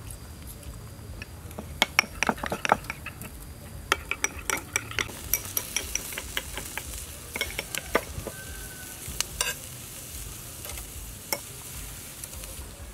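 Beef sizzling on a wire grill over charcoal, with many sharp clicks and scrapes of metal tongs turning the slices on the grate.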